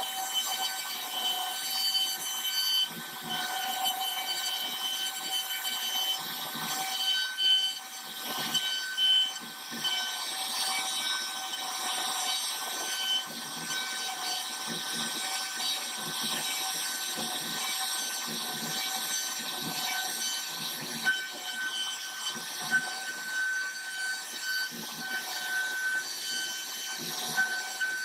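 CNC router spindle running with a steady high whine while its bit cuts a design into khat wood, the rasp of the cut rising and falling as the tool moves.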